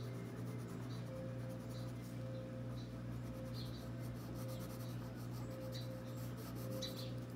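Coloured pencil rubbing on paper in short, repeated shading strokes, about one a second, over a steady low hum.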